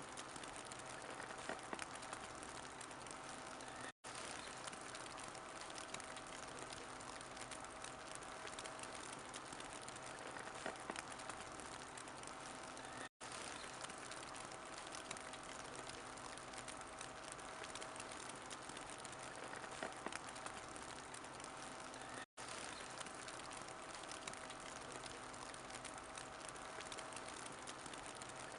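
Wood fire crackling in a fireplace, with a steady hiss and scattered small pops. The sound cuts out completely for an instant three times, about every nine seconds.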